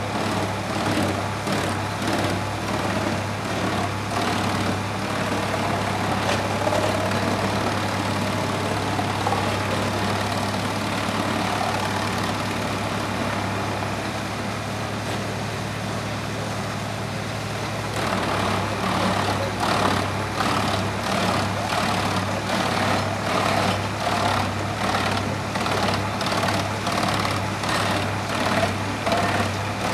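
Tractor-driven wood chipper running with a steady low drone from the tractor engine. From a little past the middle, a log is fed in and the chipper knives chop it in a rapid run of cracking knocks.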